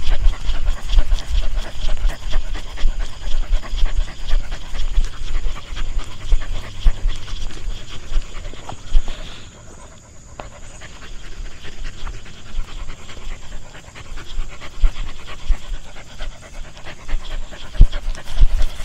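A dog panting, with a short lull about halfway through.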